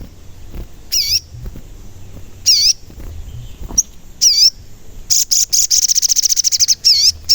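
Sogon bird calling: short, high, wavering chirps repeated every second or two, then a fast rattling trill of over a second about five seconds in, followed by more chirps.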